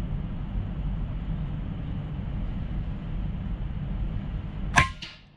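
A steady low rumble, then about five seconds in a single sharp shot from a Vulcan 3 PCP air rifle. The rifle has dropped below its regulator pressure, which the shooter says makes this pellet fall low.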